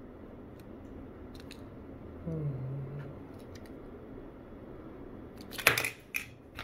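Handling noise of small packaged parts on a desk: faint clicks, a brief low hum about two seconds in, then a loud sharp knock or clatter near the end with a smaller one just after.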